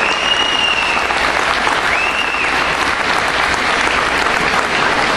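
Audience applauding steadily, with two brief high whistles over the clapping, one at the start and one about two seconds in.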